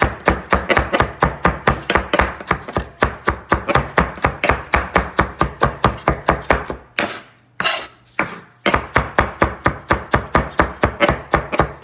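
Kitchen knife rapidly chopping fresh cilantro, quick even strokes about four to five a second. Past the middle the chopping stops for about two seconds with only a couple of single strokes, then starts again.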